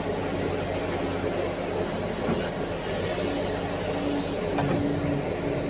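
Heavy diesel earthmoving machinery running steadily: the engines of a large Caterpillar mining excavator and articulated dump truck at work, with a steady low drone and a faint high whine.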